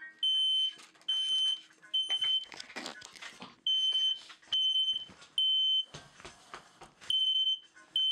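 Smoke alarm sounding its high-pitched beep in repeated groups of three, the standard evacuation pattern, set off by smoke from paper burning on the table. Rustling and clattering of people moving about fill the pauses between groups.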